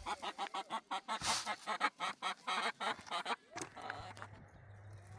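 A bird calling in a rapid run of short pitched notes, about five a second, that stops about three and a half seconds in. A low steady hum takes over after the calls stop.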